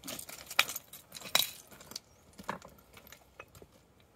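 Footsteps on a loose stony path: irregular crunches and light clicks, busier for the first two seconds and then thinning out.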